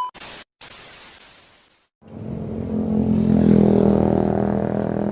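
A short burst of hiss that fades out within the first two seconds. Then a Yamaha RX-King's 135cc two-stroke single-cylinder engine runs from about two seconds in, growing louder over a second or so and then holding steady.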